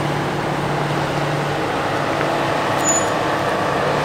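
Jeep Grand Cherokee's engine running steadily at a slow crawl as the SUV creeps down over rocks, a constant low hum with no revving.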